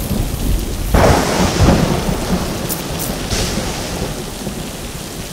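Thunderclap about a second in that rumbles on over a steady rain hiss, with a second sharper crack a couple of seconds later, the whole slowly fading.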